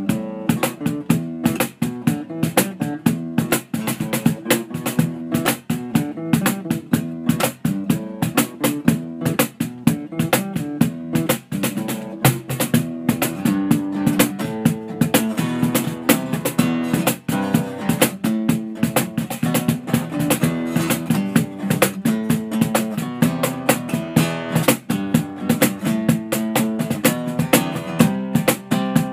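Guitar music: a continuous run of fast plucked notes.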